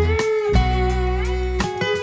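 Background music: guitar with sliding, bending notes over a steady bass, country style.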